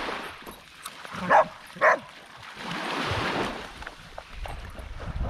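Dog barking during play: two short barks about a second and a half and two seconds in, then a softer rushing noise around the middle.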